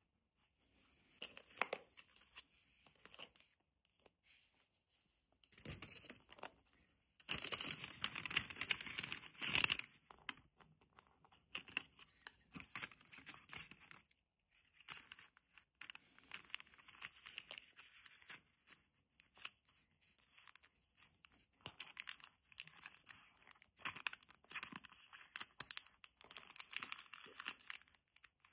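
Paper packaging being handled: a kraft paper envelope and wrapping paper rustling and crinkling in irregular bursts as they are picked up and folded, the loudest a long rustle from about seven to ten seconds in. Faint marker scratching on a card near the start.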